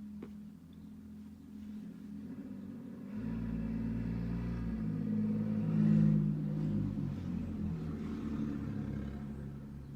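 Low rumble of a passing motor vehicle. It builds about three seconds in, is loudest around six seconds, then slowly fades.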